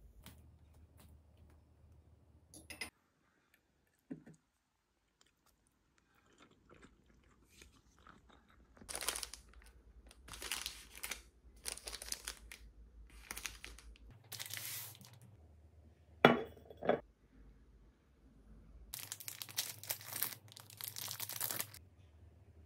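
Bursts of crinkling and rustling handling noise, with two short sharp knocks between them.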